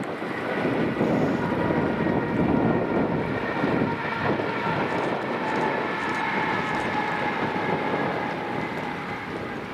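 A ScotRail Class 380 electric multiple unit running past with a steady rumble, while several high whining tones hold from about a second in, one sinking slightly in pitch later on.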